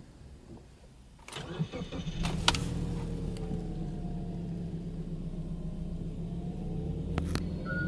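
Subaru Legacy Touring Wagon 2.0GT's turbocharged flat-four engine cranked and started, heard from the driver's seat: it catches a little over a second in with a brief flare of revs, then settles into a steady idle around 1,000 rpm.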